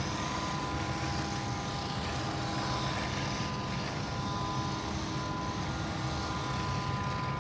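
Steady machinery hum holding a few constant tones at an even level.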